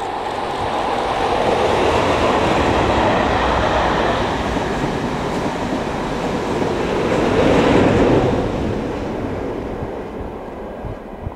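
Diesel-hauled charter train passing close beneath, with a Class 37 and a Class 47 diesel locomotive at either end. The sound swells as the leading locomotive passes about two seconds in. The coaches rumble by on the rails, a second loud surge comes near the end as the tail passes, and then it fades away.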